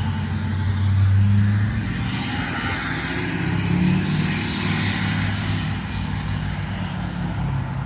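A car passing by on the road: a steady low engine hum, with tyre hiss that swells between about two and five seconds in and then fades.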